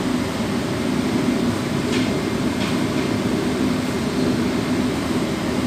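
Steady low rumble of background noise, with two faint clicks about two seconds in.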